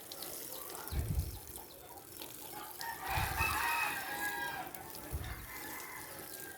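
A rooster crows once, starting about three seconds in: a drawn-out call of about a second and a half. A few dull low thumps come around it.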